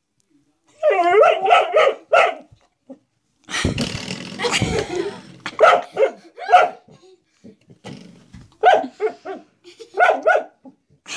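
Dog barking at a spring door stop while lying on the floor. About a second in comes a drawn-out bark that wavers in pitch. A rougher, noisier stretch follows around four seconds in, then short barks in clusters of two or three.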